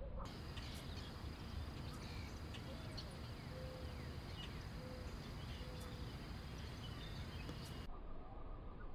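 Outdoor ambience at the water's edge: birds chirping and insects calling, with a few short whistled notes and a steady low rumble underneath.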